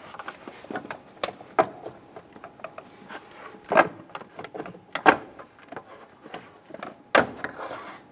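Plastic fuse box housing being slid and worked loose from its base: a series of sharp plastic clicks and knocks, the loudest ones in the middle and near the end.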